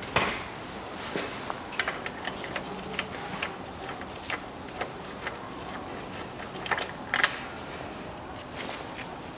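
Ratchet wrench with a 12 mm socket clicking and metal clinking as the bolts on the CVT oil filter housing are undone. The clicks come irregularly, with two louder clinks about seven seconds in.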